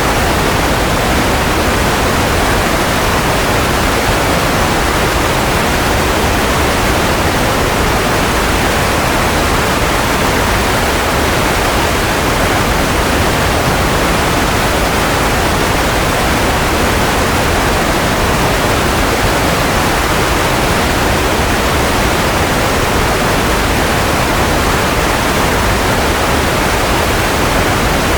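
Steady white noise for baby sleep: an even, unbroken hiss with no change in level or pitch and no motor whine or other tones in it.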